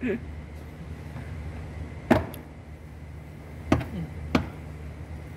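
Three short, sharp knocks from the handling of a Mazda CX-5's interior door trim panel, over a steady low hum.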